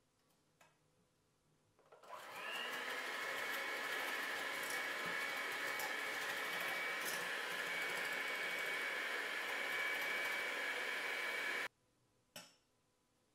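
Midea electric hand mixer with wire whisk beaters whipping egg whites and sugar in a stainless steel bowl: it starts about two seconds in with a whine rising to speed, runs steadily, and cuts off suddenly near the end. A single sharp click follows just after it stops.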